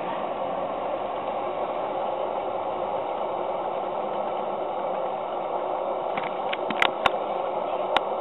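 Live-steam engine of a model stern-wheel paddle steamer running steadily with a constant steam hiss and machinery noise, driving the paddle wheel out of the water. A few sharp clicks come in the last two seconds.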